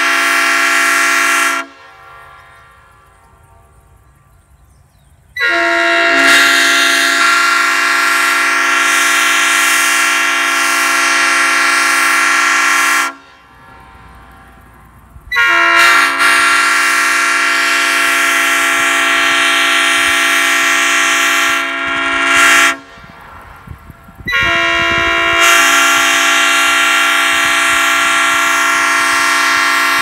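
A 3D-printed PETG copy of a Nathan Airchime P5 train horn with bells 1, 2, 3, 4a and 5, sounding its five-note chord on 120 psi air. A blast cuts off about two seconds in, followed by three long blasts of about seven to eight seconds each with short gaps between.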